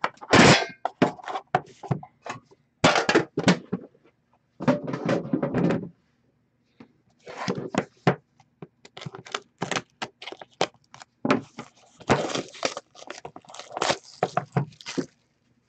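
Hands handling a metal trading-card tin and the box inside it: a loud clatter as the lid comes off, then irregular knocks, clicks and scrapes as the box is lifted out, turned and tapped on the table.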